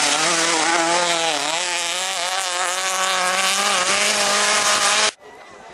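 Rally car's engine held at high revs, its pitch wavering up and down through the corner over a hiss of tyres on loose gravel, cutting off abruptly about five seconds in.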